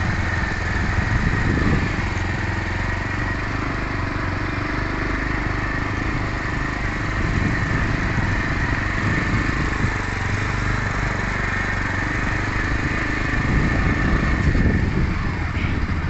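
Motorcycle engine running steadily under load on a hill climb, with a steady high tone above it.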